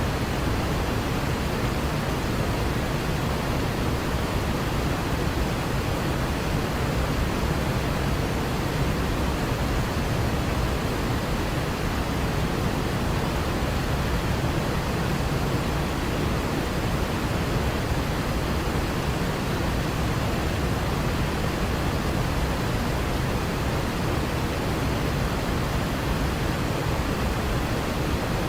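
Waterfall cascading: a steady, unbroken rush of falling water.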